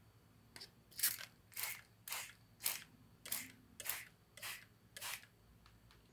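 Hand spray bottle misting water onto watercolour paper: about nine quick trigger sprays, roughly two a second, each a short hiss.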